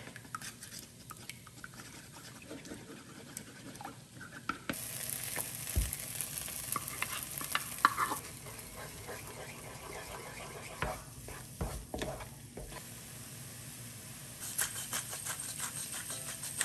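A wooden spoon beats eggs in a wooden bowl with light clicking strokes. From about five seconds in, beaten egg sizzles in a hot frying pan with diced tomatoes as it is scrambled with a wooden spatula. Near the end comes a run of quick clicks.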